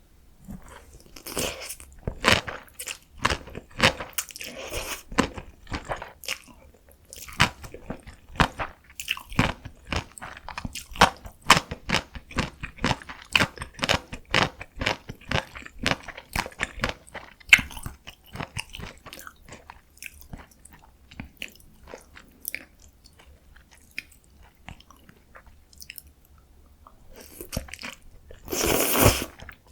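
Close-miked eating of cold spicy bibim noodles: wet chewing with many sharp mouth clicks and smacks. The chewing goes quieter about three-quarters through, then one longer, louder sound lasting about a second comes near the end.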